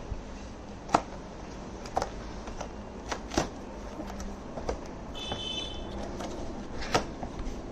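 Cardboard box and packaging being handled during unpacking: scattered crinkles and knocks, about one a second, with a brief high squeak about five seconds in.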